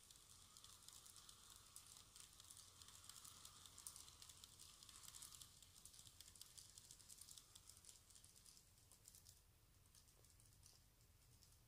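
Model train running on sectional track, faint: its wheels click rapidly over the rail joints over a soft motor whine, both fading as the train moves away, the clicking dying out about nine seconds in.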